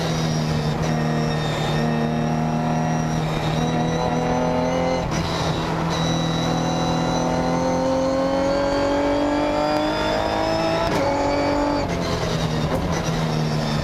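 Ginetta G50 GT4 race car's 3.5-litre Ford V6 engine heard from inside the cockpit under hard running. The note breaks about five seconds in, then climbs steadily in pitch as the car accelerates through a gear, and drops at an upshift about eleven seconds in.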